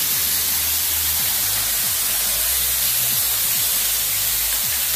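Water cascading off the rock face over a tunnel portal: a steady hiss of falling, splashing water. Under it, low music notes change in steps.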